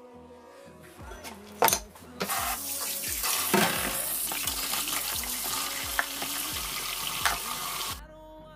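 Kitchen tap running into a plastic tub of raw chicken pieces in a stainless steel sink, the water splashing as the chicken is rinsed. A few light clatters and a sharp knock come first, the water starts about two seconds in, and it cuts off suddenly near the end.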